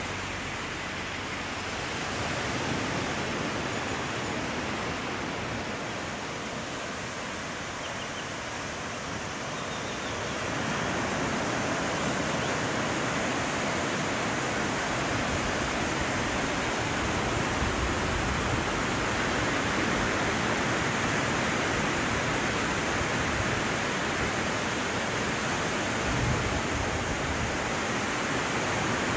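Steady wash of surf breaking on a sandy beach, growing louder about ten seconds in.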